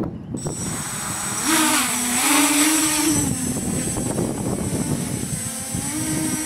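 A quadcopter with four SunnySky 2212 980 kV brushless motors and carbon-mix propellers spinning up and climbing into the air. It makes a loud buzzing hum whose pitch steps up about a second and a half in, drops near three seconds and rises again near the end as the throttle changes.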